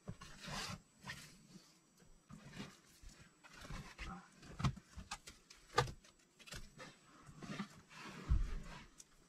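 Fabric boat sunscreens being handled, folded and rolled up: irregular rustling and swishing of the cloth, with a few soft knocks about four and a half, six and eight and a half seconds in.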